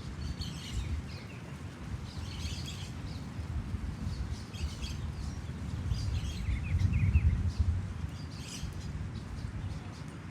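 Scattered high bird chirps every couple of seconds over a steady low rumble that swells about seven seconds in; no loud goose honking.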